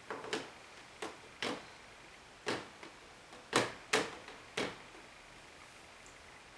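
Sharp knocks or taps on something hard, about eight of them in an irregular run over roughly four and a half seconds, each dying away quickly.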